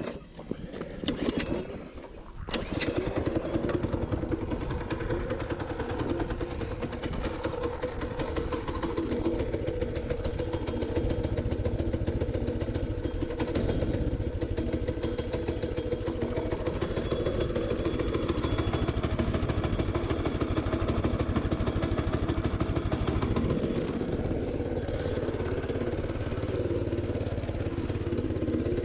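A few knocks, then from about two and a half seconds in a mini bike's small engine runs steadily, with a slight shift in its note near the end.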